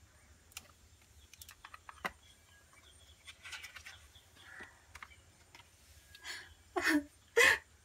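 Hardcover picture book being opened and its paper pages turned: soft rustles and light clicks and taps, with two louder short sounds near the end.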